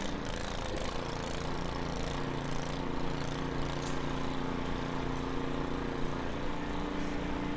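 Two-stage gas snowblower's engine running steadily.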